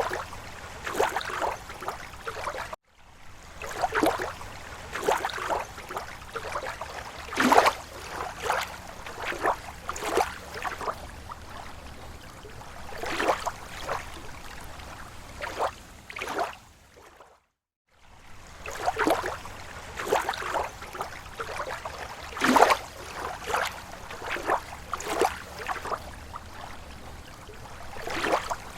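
Lake water lapping against the shore in slow waves: irregular small splashes and gurgles, with the sound cutting out briefly twice.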